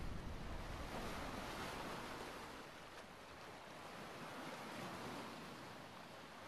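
A low rumble dying away over the first few seconds, leaving a soft, steady wind-like hiss.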